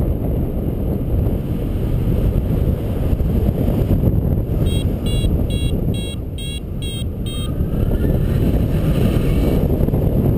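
Wind rushing over the camera microphone in paraglider flight. Through the middle, a flight variometer beeps in a quick series of short high tones, about three or four a second, the sign of the glider climbing in lift.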